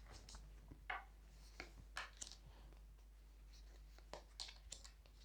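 Faint rustling and a few light clicks of tarot cards being handled and drawn, scattered short sounds over near silence.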